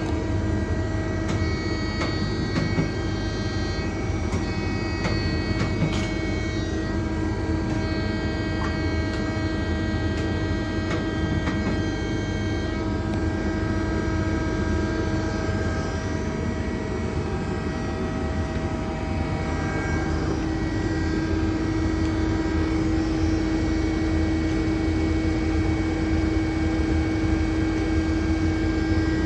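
Steady hum of running machinery with several held tones. The strongest tone fades for a few seconds in the middle and then returns. A few light clicks and taps come in the first twelve seconds or so.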